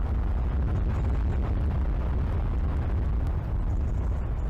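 Strong wind buffeting an outdoor nest-camera microphone as a steady low rumble, with rain falling.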